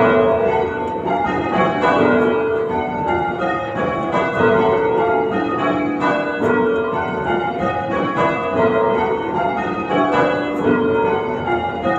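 Church tower bells rung full circle by a band of change ringers, each bell striking in turn in a steady, continuous succession of overlapping ringing tones.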